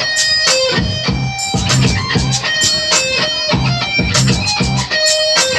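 Recorded hip-hop song between vocal lines: a plucked electric guitar riff repeating over a steady drum beat and bass.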